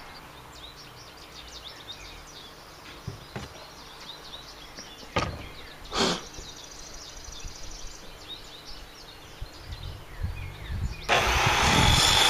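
Outdoor ambience with birds chirping and a few sharp knocks. About a second before the end, the electric motor of a compound miter saw switches on and keeps running, loud and steady.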